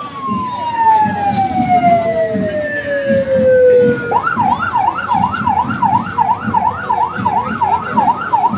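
Electronic siren: a long wail falling slowly in pitch, then about four seconds in it switches to a fast up-and-down warble.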